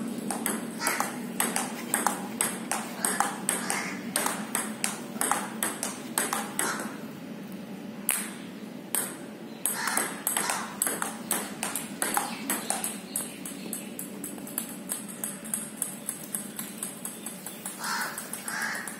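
Table tennis ball clicking off paddle and table in a practice rally, about two to three sharp clicks a second. The clicks stop briefly around eight seconds in, resume, and grow sparser near the end.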